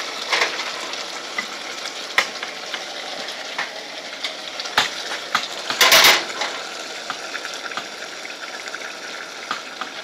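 Vegetables sautéing in olive oil in a nonstick saucepan, a steady sizzle, with tongs clicking against the pan a few times and a louder scrape about six seconds in as the pan is moved.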